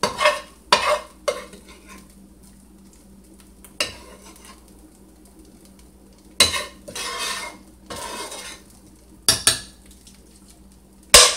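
Metal spoon scraping and clinking in a nonstick frying pan in irregular strokes, scooping out the last sautéed onions and peppers, with a sharp knock near the end.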